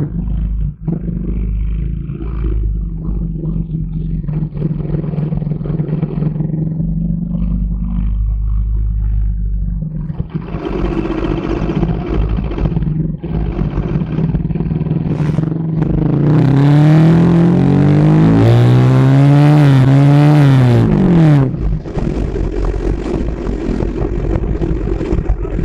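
Bajaj Pulsar RS 200 motorcycle's single-cylinder engine running on its stock exhaust, then revved hard several times past the middle, its pitch climbing and falling, the loudest part, before settling back to a steady run.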